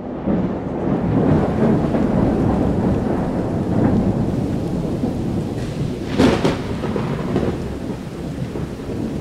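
Thunderstorm: a steady rumble of thunder and rain that begins abruptly, with a sharp crack of thunder about six seconds in.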